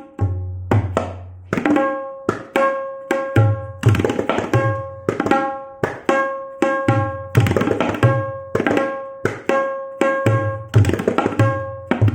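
Solo tabla playing a farmaishi chakradhar in teentaal, a composition whose strokes imitate Diwali fireworks and crackers. Quick, sharp strokes on the tuned right-hand drum ring at one steady pitch, mixed with deep bass strokes on the left-hand bayan.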